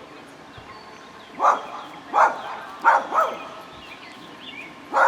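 A dog barking five times at irregular intervals, with two barks in quick succession near the middle. She is barking at people walking past.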